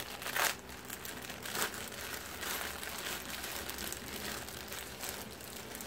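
Packaging crinkling and rustling as a pack of socks is handled and opened, with a few sharper crinkles in the first two seconds and softer rustling after.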